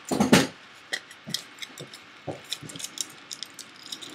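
Aluminium foil crinkling as it is handled and wrapped around a fingertip: a louder crumple at the start, then scattered small crackles.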